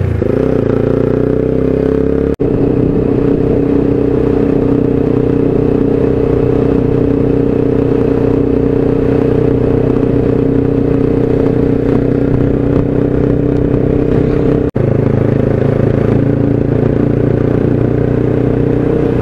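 TVS Apache RTR 4V single-cylinder motorcycle, fitted with an aftermarket exhaust that gives it more sound, running at a steady cruising speed as heard from the rider's seat. The drone holds an even pitch and cuts out for an instant twice.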